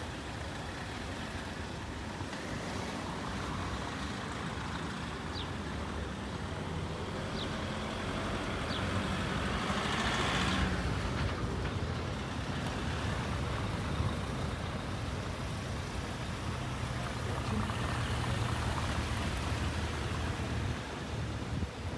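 Road traffic: a steady hum of passing vehicles that swells to its loudest about halfway through.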